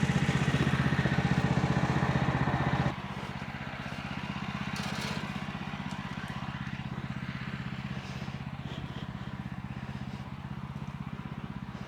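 Small engine running steadily at a constant speed. It drops suddenly to a quieter level about three seconds in and keeps running.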